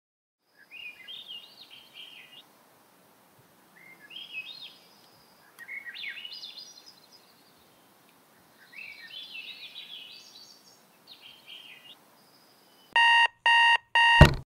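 Birds singing in short chirpy phrases, then a digital alarm clock beeping three times in quick, even electronic tones, followed near the end by a sharp knock.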